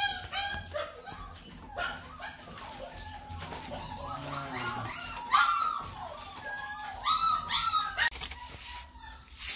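Dog whining and yelping in short high-pitched whimpers: a cluster right at the start, another about five seconds in, and a run of them about seven seconds in.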